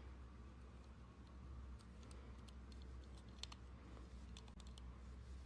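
Faint, scattered small clicks and taps from hands fitting the small plastic and metal parts of a TV cooling fan back together, over a low steady hum.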